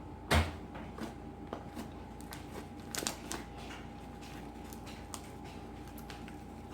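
Homemade slime being squeezed and worked by hand, giving scattered crackling and popping clicks, with one louder thump about half a second in and a short flurry of clicks around three seconds in.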